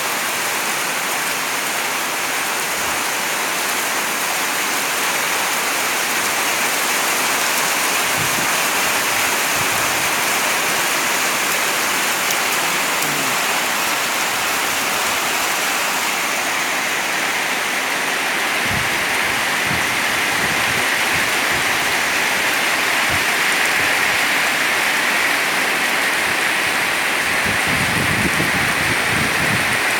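Heavy rain pouring steadily, an even hiss of downpour, with a few brief low thuds in the second half.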